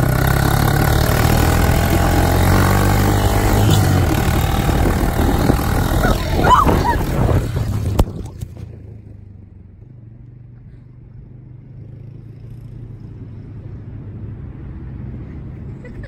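Small ATV engine running close by. A sharp knock about eight seconds in, after which the engine is heard only as a faint low hum.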